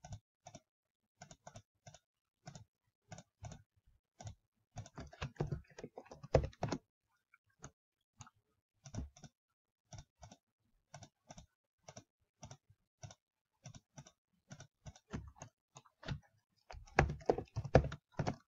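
Computer keyboard keystrokes and mouse clicks: single clicks every half second or so, with two quicker flurries of typing, about five seconds in and again near the end, as faces are selected and extruded by typed values.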